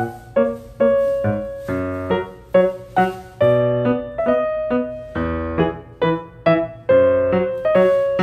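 Background music: a keyboard melody of short struck notes that die away, a few notes a second, sounding like piano.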